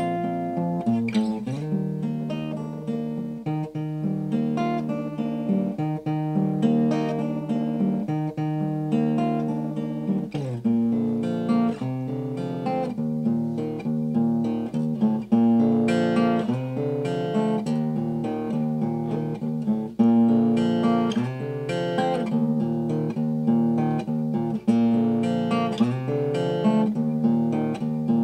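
Acoustic guitar music: strummed chords and picked notes changing every second or so.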